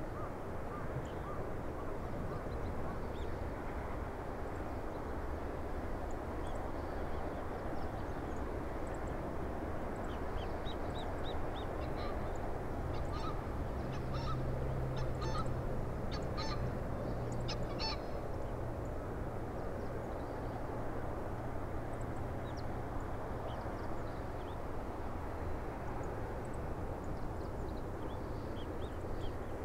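Airbus A330 jet airliner on final approach and landing: a steady rushing jet noise with a low hum that swells about halfway through. Birds give many short honking calls in the middle.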